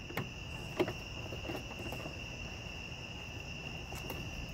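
Crickets trilling steadily in the background, with a few short clicks from a hand tool on the headlight's mounting bolts, the clearest just under a second in.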